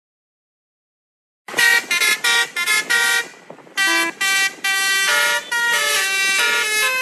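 Basuri multi-tone horn sounds from a phone horn-simulator app, set to its 'Dau D3 PHD' horn voice, played note by note on the app's keys. After about a second and a half of silence comes a quick run of short horn notes, then longer held notes.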